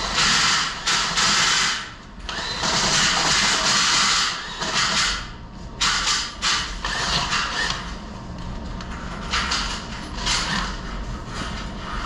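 Drill-driven drain auger spinning a chain inside a steel Jeep frame rail: the chain rattles and scrapes against the rusty inside walls to knock scale loose. It runs in several starts and stops, with short pauses.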